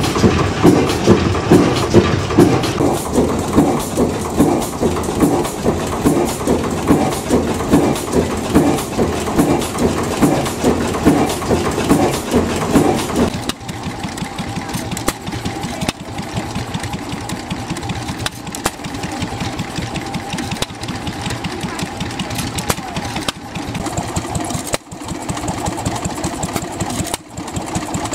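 Gardner Type HF single-cylinder horizontal 'heavy oil' engine running slowly with a loud, heavy, regular beat. About halfway through, the sound cuts to a quieter small stationary engine running steadily with a quicker beat as it drives a belt.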